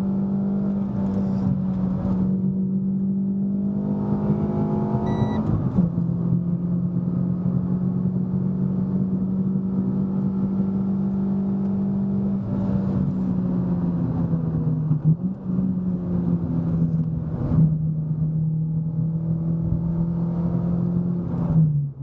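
Renault Sandero RS 2.0 four-cylinder engine pulling at high revs under load up a climb, heard from inside the car. The note holds steady, rises briefly about five seconds in and dips twice with short sharp sounds in the second half. It drops clearly in pitch as the revs fall near the end.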